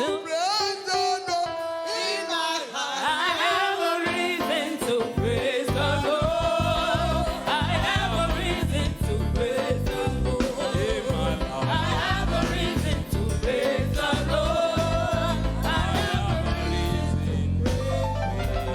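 Gospel praise song: voices singing over instrumental accompaniment, with a heavy bass line coming in about four seconds in.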